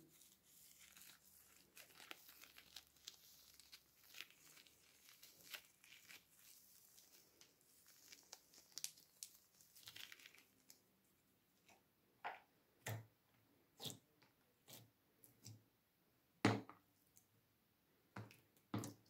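Sticky clear glitter slime being stretched and peeled off small plastic doll figures, a faint crackle of many small clicks. In the second half come several separate sharp taps as the plastic figures are set down on a hard surface.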